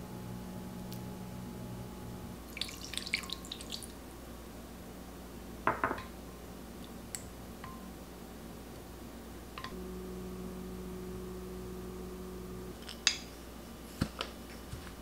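Light kitchenware handling: a wooden spoon knocking and scraping against a glass bowl and a glass jar. A cluster of small clicks comes about three seconds in, a single knock about six seconds in, and a few sharp clicks near the end. Under it all runs a steady low hum.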